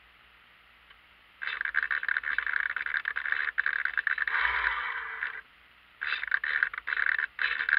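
Sail winch servo of a radio-controlled Marblehead yacht whirring in bursts as the sheets are let out and the boom swings. It starts suddenly about one and a half seconds in, runs for about four seconds, stops briefly, then runs again near the end.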